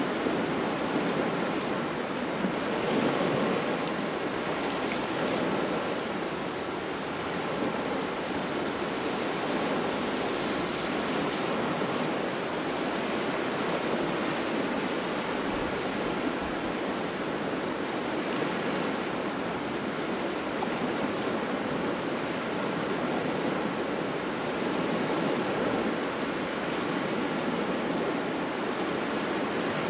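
Small waves washing against the shore in a cold autumn wind, a steady wash that swells and eases gently. The wind also buffets the microphone.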